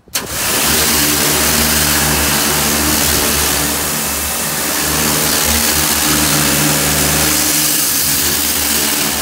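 Karcher K3 Compact electric pressure washer running and spraying: a loud, steady motor-pump hum under the hiss of the water jet, starting suddenly at the beginning. It is working while fed from a bucket through a home-made suction pipe instead of a tap.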